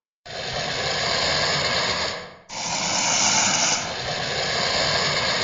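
Styracosaurus creature vocalizations from the film's sound design: two long, harsh, breathy rasping calls. The second starts abruptly about halfway through.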